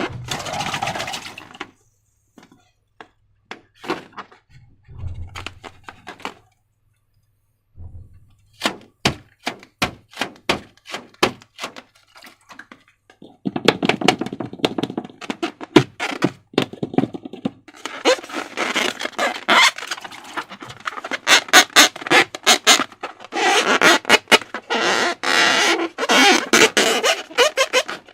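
Slime being squished and stretched by hand, making sticky clicks and crackles. There are a few separate clicks at first, then a run of crisp snaps, and from about halfway on a dense crackling squish with brief pauses.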